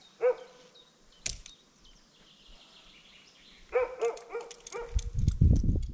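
A dog barking: a single bark just after the start and two quick barks about four seconds in. A sharp knock comes about a second in, and near the end a louder low rumble with rapid clicking.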